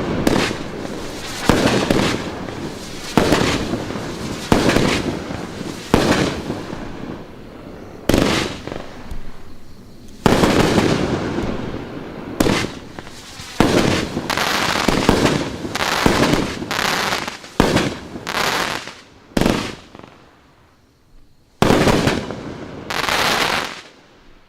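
Riakeo Max Load #3, a 20-shot 500-gram fireworks cake, firing about sixteen shots in steady succession. Each shot is a sharp bang that trails off, coming roughly one every second and a half, with a short lull near the end before the last two.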